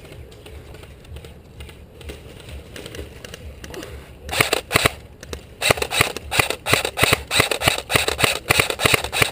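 Airsoft gun fire in rapid strings of sharp clicking shots: faint scattered shots at first, a short burst about four seconds in, then nearly continuous rapid fire from about halfway through.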